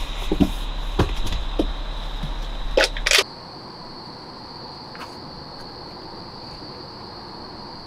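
Knocks and clatters of someone rummaging inside a car, over a low hum, for about three seconds. They cut off suddenly, leaving a quiet steady background with a constant high-pitched drone.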